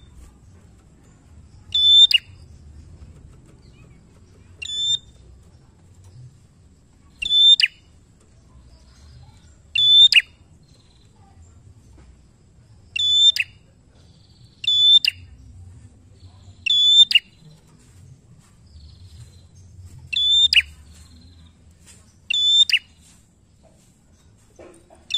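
A prenjak giving short, loud, high-pitched calls about every two to three seconds, each a piercing note that drops quickly at its end.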